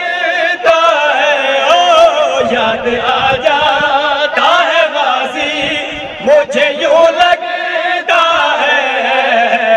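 Several men singing an unaccompanied Urdu devotional hazri in praise of Abbas, voices amplified through microphones, one voice leading and others joining in long, wavering held notes. A few sharp knocks sound over the singing.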